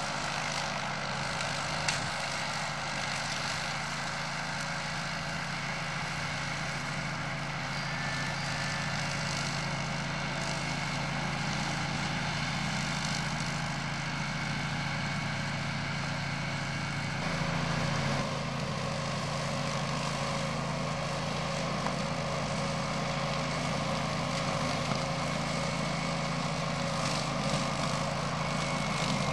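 Grillo Climber 9.21 ride-on mower's engine running steadily under load while it mows long grass; the engine note shifts slightly about two-thirds of the way through.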